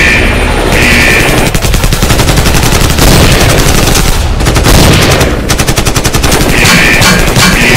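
Rapid automatic rifle fire, a dubbed-in gunfire sound effect, shot after shot in long bursts. A pulsing high tone sounds at the start and comes back near the end.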